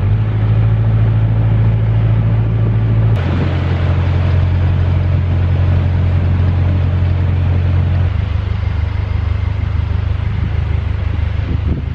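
Narrowboat's diesel engine running steadily at low speed, heard close by on the stern deck. Its note shifts to a different steady pitch about three seconds in and again about eight seconds in.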